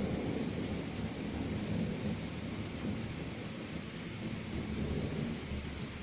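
Distant thunder from a passing thunderstorm, rumbling low and slowly dying away, with a slight swell near the end, over a steady hiss.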